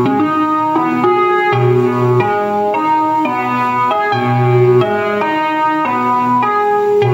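Music played on a keyboard: sustained chords that change about every half second, with no drums.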